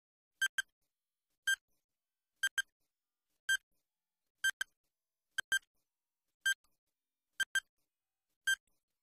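Countdown timer sound effect beeping about once a second, each beep a short high pip, several of them in quick doubles, ticking down the seconds left to answer.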